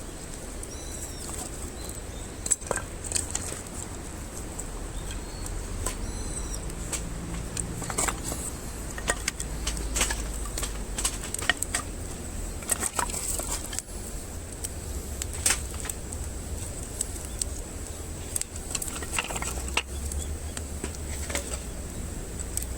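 Wood campfire crackling, with irregular sharp pops and snaps over a low rumble.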